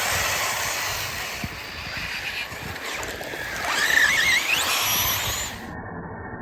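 Radio-controlled off-road cars running, heard as a steady hiss. About three and a half seconds in, a motor whine climbs sharply in pitch as one car accelerates past.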